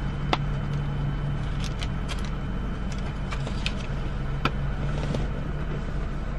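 Car idling, heard from inside the cabin as a steady low hum, with a few light clicks and taps of small objects being handled.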